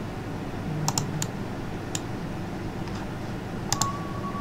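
Several scattered clicks of computer keyboard keys and a mouse over a steady low hum, with a short steady high tone near the end.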